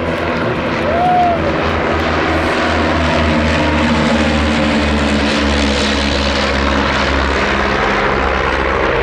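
De Havilland Chipmunk's piston engine and propeller droning steadily as the aircraft flies past, growing louder after about a second and loudest in the middle.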